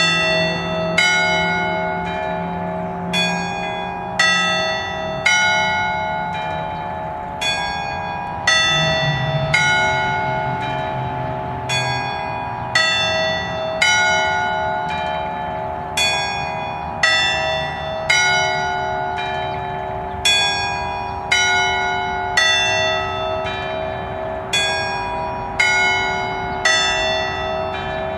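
A concert of nine bronze church bells tuned in A, eight plus one semitone bell, cast by the Capanni foundry, ringing an allegrezza in the Bolognese style. Bells are struck in turn about once a second, each new stroke ringing over the lingering, beating hum of the others.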